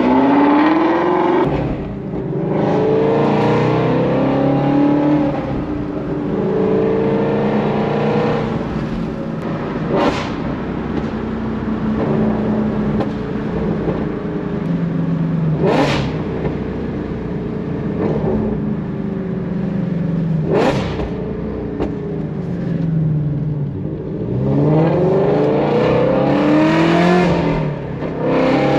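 Ford Shelby GT350's V8 pulling hard through the gears, its pitch rising several times, then holding a steadier cruise before it accelerates through the gears again near the end. A few sharp clicks cut through around ten, sixteen and twenty seconds in.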